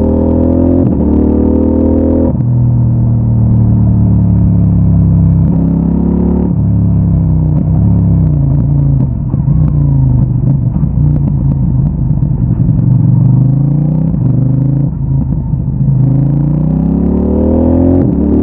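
CFMOTO 800NK Advanced's 799 cc parallel-twin engine through its stock exhaust, pulling hard and rising in pitch with two quick upshifts in the first seven seconds. It then falls and wavers in pitch as the bike slows, and pulls up again near the end with another shift.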